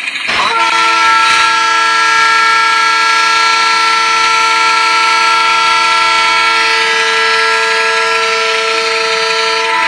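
Digitrax DCC sound decoder in an HO-scale model WDM2 diesel locomotive playing its WDM2 single-horn sound through the model's speaker. It is one long, steady chord blast that starts about half a second in and is held for about nine seconds.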